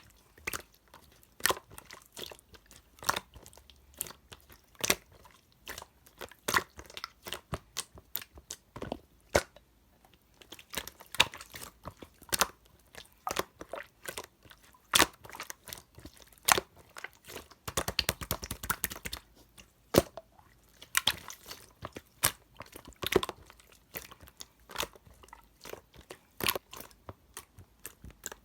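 Yogurt slime being pressed and squished by hand, making sharp sticky clicks and air-bubble pops at irregular intervals. About 18 seconds in, there is a dense run of rapid crackling.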